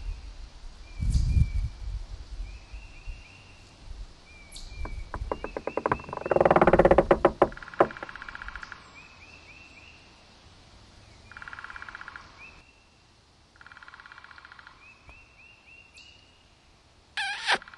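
Birds chirping in short, evenly repeated calls. A loud buzzing rattle comes about six seconds in and lasts a couple of seconds, two shorter buzzing trills follow later, and a loud pitched call begins near the end.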